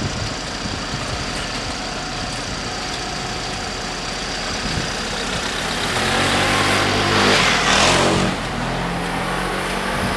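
Waiting vehicles run steadily, then a motor scooter's engine rises as it rides past close by, loudest about eight seconds in, with a car following just behind it across the crossing.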